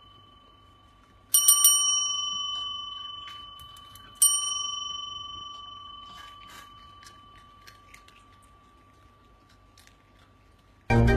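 A small metal bell struck twice, about three seconds apart, each ring fading slowly over several seconds, with a few faint clicks in between.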